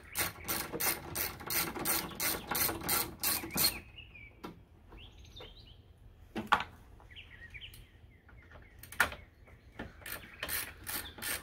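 A socket ratchet on a 10 mm socket clicks steadily, about three clicks a second, as it backs out a coolant-tank bolt, and stops a little under four seconds in. A few single clicks and knocks follow. About ten seconds in, the ratcheting starts again on the second bolt.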